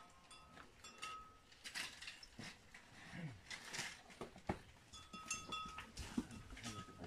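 Faint calls of livestock in a corral, mixed with scattered small clicks and knocks.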